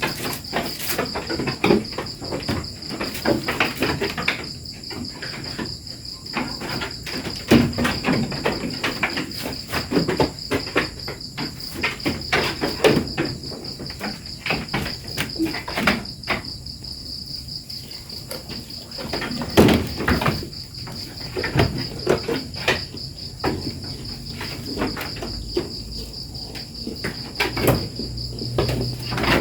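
A steady high-pitched insect chorus, with irregular knocks and clatters throughout, the loudest about 7.5 and 19.5 seconds in.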